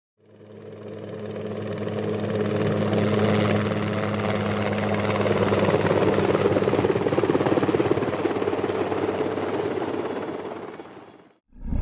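Helicopter in flight: a fast rotor beat over a steady low engine hum. It fades in over the first couple of seconds, holds steady, and fades out just before the end.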